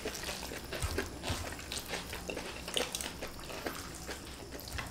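Close-up eating sounds: soft chewing and wet mouth noises on fried flat rice noodles, with small clicks and scrapes of plastic spoons in a tray of noodles.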